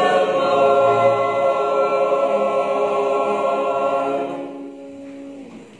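Mixed church choir holding one long final chord, which grows quieter after about four seconds and stops just before the end.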